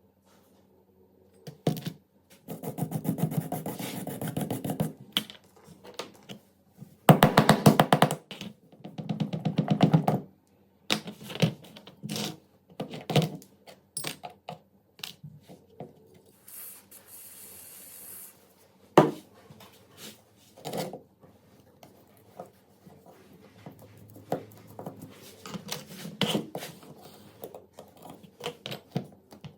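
Hand work on small metal parts: irregular knocks and clicks, with several bursts of rapid scraping or tapping strokes and a short hiss about midway.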